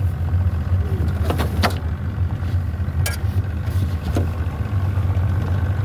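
Boat motor running steadily at low speed with a constant low hum as the boat eases in toward a dock. A few short knocks sound over it, about one and a half, three and four seconds in.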